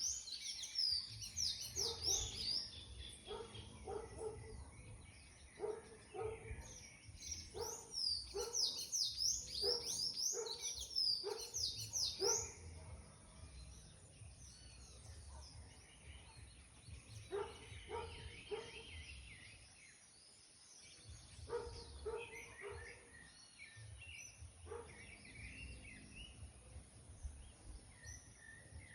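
Wild birds singing: clusters of rapid, high, sweeping chirps, loudest in the first half, then softer, lower calls.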